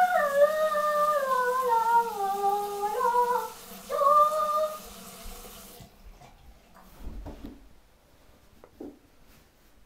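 A person humming a wordless tune in the shower, holding notes and sliding down between them, over the steady hiss of running shower water. The water cuts off sharply about six seconds in, and a few faint knocks follow.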